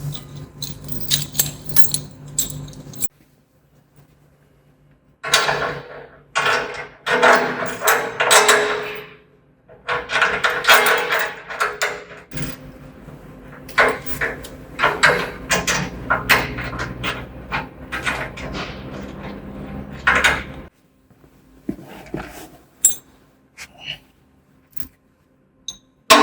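Clinking and clanking of metal sawmill-bed parts and hand tools being handled and fitted together, in several busy bursts that cut off abruptly.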